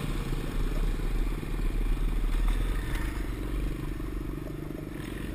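Small single-cylinder pit bike engine idling close by, a steady low pulsing sound.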